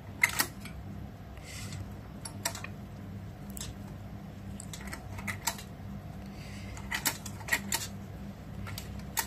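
Scattered small clicks and taps of plastic and wire as hands tuck insulated wiring into a rice cooker's plastic base, with a few brief rustles, over a steady low hum.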